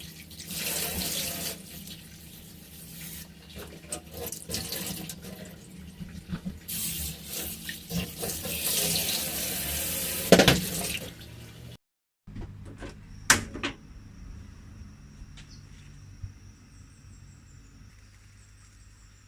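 Water running from a kitchen tap into a sink in bursts, with clatter and knocks of things being handled under it, stopping abruptly about 12 seconds in. After that it is quieter, with a sharp knock and a few light clicks.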